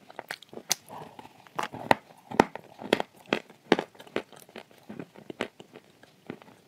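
Chewing a mouthful of dry, crunchy edible clay, sold as 'shortbread' clay and eaten with clay paste: irregular sharp crunches and crackles, a few a second, loudest a couple of seconds in.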